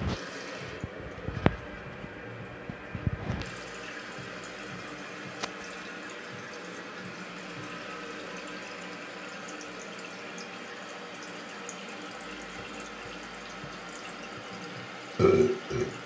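Toilet tank refilling after a flush: water running in through the float-operated fill valve as a steady hiss. A few light knocks in the first seconds, and a brief louder sound near the end.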